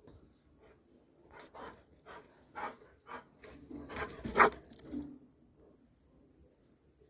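Doberman moving close to the microphone, its metal chain collar jangling in a run of short irregular clinks and scuffs, loudest about four and a half seconds in, then dying away.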